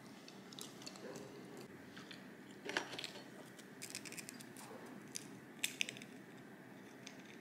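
Faint, scattered clicks and taps of cutlery and dishes during a meal, over quiet room tone, with a small cluster about three seconds in and another near six seconds.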